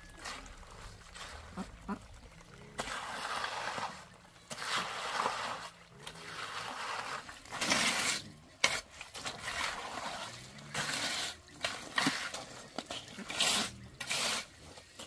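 Rake dragged through wet concrete in repeated strokes, each a wet scrape and slop, about one a second with short pauses: fresh concrete being spread and levelled in a slab form.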